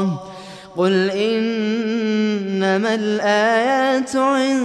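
A man's solo voice reciting the Quran in melodic tajweed style. A held note ends at the very start and is followed by a brief breath pause. From about a second in comes a long, sustained, ornamented melodic line.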